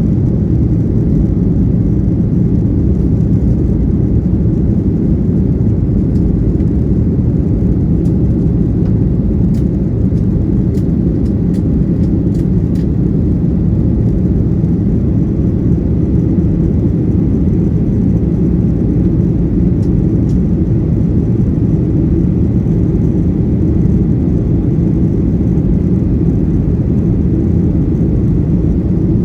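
Steady low drone of an airliner in flight heard inside the passenger cabin: engine and airflow noise, with a few faint clicks around the middle.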